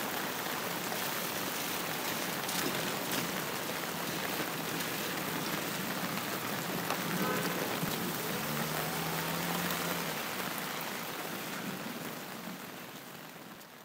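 Steady, even hiss of noise across the whole range, fading out over the last couple of seconds; a faint low hum joins it from about eight and a half to ten seconds in.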